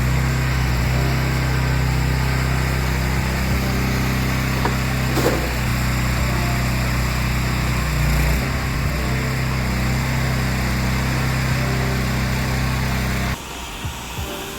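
Gas-engine pressure washer running steadily at working speed. It cuts off abruptly near the end.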